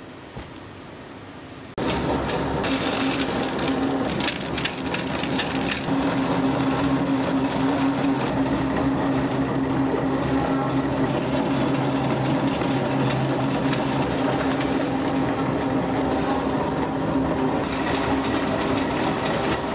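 Cardboard carton-making machinery running steadily, a hum with dense rapid mechanical ticking, starting abruptly about two seconds in. Before that there is a quieter stretch with one light tap as cut cartons are handled.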